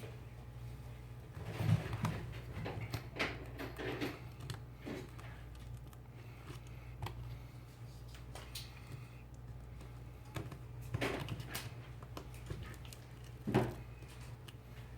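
A thin metal pry tool scraping and clicking against the glass of a smartphone as the front glass is separated from the display, in scattered small taps and scrapes, the loudest about two seconds in and near the end. A steady low hum runs underneath.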